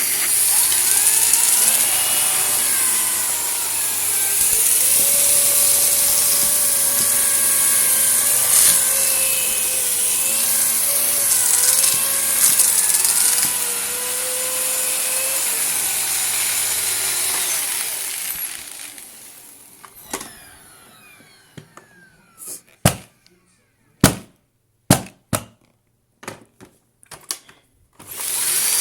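Vacuum cleaner running on carpet with grit being picked up: a loud steady rush with a hum and a wavering whine. It is switched off about two-thirds of the way through and winds down. Then come a series of sharp clicks and knocks as it is handled.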